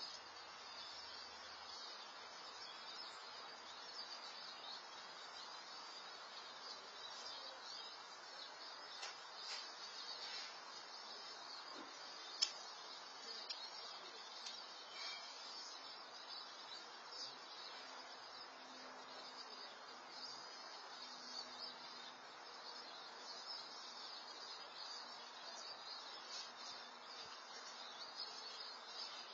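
Faint outdoor ambience picked up by a security camera's microphone: a steady high-pitched chirring over a low hiss, with one sharp click about twelve seconds in.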